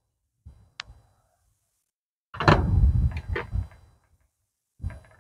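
Screwdriver working a terminal screw on an air-conditioner condenser's contactor: a few light clicks, then a louder clatter of knocks and scraping lasting about a second and a half midway, and a short knock near the end.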